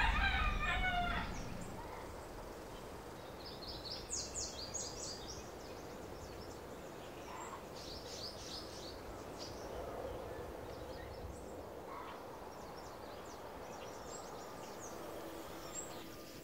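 Faint rural outdoor ambience: a quick chattering fowl call right at the start, then small birds chirping in short high clusters, twice strongly and then more faintly, over a steady background hiss.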